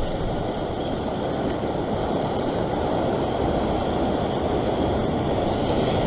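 Ocean surf surging and breaking against a rock ledge: a steady rushing noise that builds slightly toward the end.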